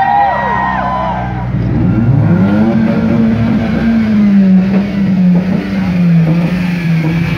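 Modified car engines revving as the cars drive slowly past: a quick series of revs in the first second or so, then another engine rising in pitch and running on with a steady note.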